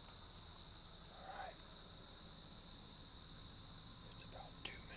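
Crickets chirping in a steady chorus, a continuous high trill with no breaks.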